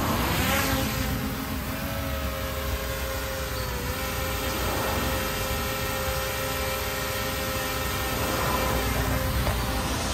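DJI Mini 3 Pro drone's propellers spinning up and flying: a steady, multi-pitched whine that rises at the start and dips briefly in pitch about four seconds in, over a low rumble.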